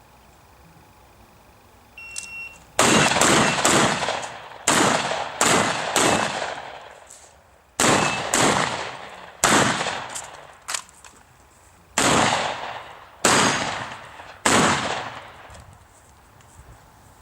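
A shot timer's short start beep, then a Vepr-12 12-gauge semi-automatic shotgun firing a rapid series of shots at steel plates, in quick strings with brief pauses between groups, each shot echoing away.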